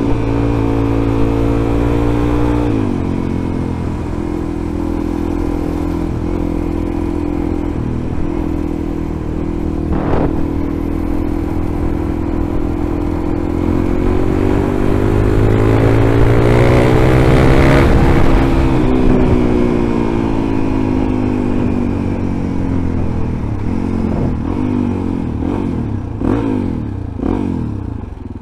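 Suzuki DR-Z400E's single-cylinder four-stroke engine under way. It holds a steady cruise, then rises in pitch over several seconds as the bike accelerates about halfway through, and falls back as the throttle eases. Near the end come several short rises and falls in pitch.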